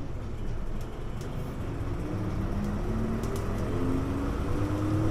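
Hino U-HU2MLAA city bus heard from on board as it accelerates: the engine's running note and a whine climb in pitch and grow steadily louder.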